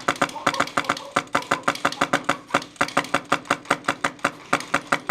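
Airsoft gun firing a long continuous stream of shots, about seven a second, sharp regular cracks over a steady motor whine.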